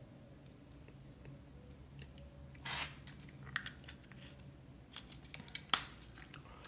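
Slipjoint folding pocket knives being handled on a table: a scattered run of small clicks and knocks with a brief scrape, and a sharper click near the end.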